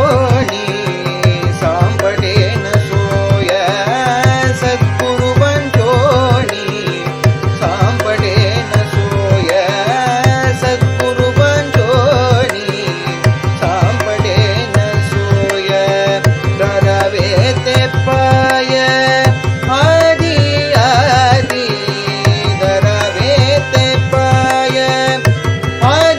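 Harmonium playing a devotional bhajan melody over a steady recorded mridangam rhythm, with rapid, even drum strokes and held harmonium tones.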